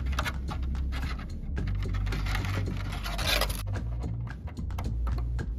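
Background music with a deep bass line stepping from note to note, over scattered light clicks and a scraping noise that starts about two seconds in and lasts about a second and a half.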